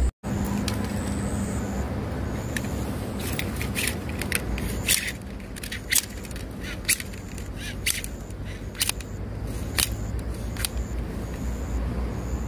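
Fishing tackle being packed up, with one rod taken in off its rest: an irregular run of sharp clicks and light knocks from about three seconds in until near the end, over a steady low rumble.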